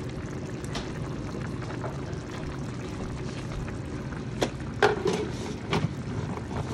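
Chicken and broccoli simmering in oyster sauce in a skillet: a steady bubbling hiss, with a few sharp clinks about four to six seconds in.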